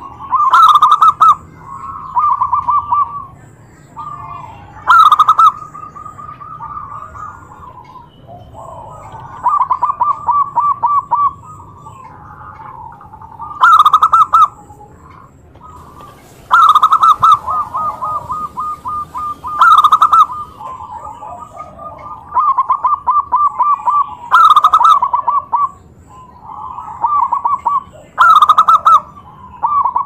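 Zebra doves (perkutut) cooing one after another, several birds calling against each other. Each call is a loud burst of fast stuttering notes at a steady pitch, and the calls come every few seconds.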